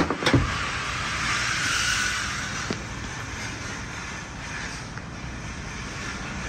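A pickup truck door shut at the start, two quick thuds, then a steady hissing rush of background noise that eases off a little after a couple of seconds.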